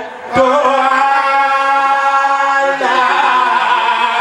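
A man's voice chanting religious verses in long held notes. After a short break and a brief pop near the start, he holds one steady note for over two seconds, then moves to another held note near the end.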